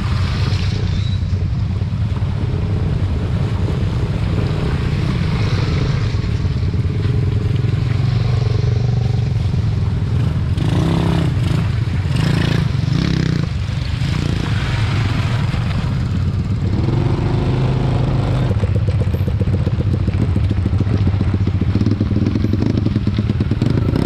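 Small motorcycle engines running steadily close by, with a few brief louder surges around the middle as bikes come past.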